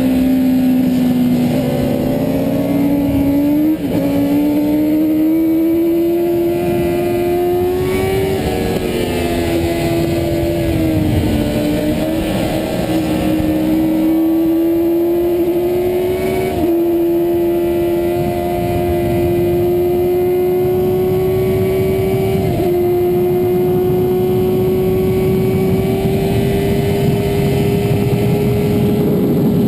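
Yamaha FZR400RR's inline-four engine running hard at high revs, heard from on the bike, its pitch climbing slowly and breaking briefly about four times at gear changes. Wind rushes over the microphone at racing speed.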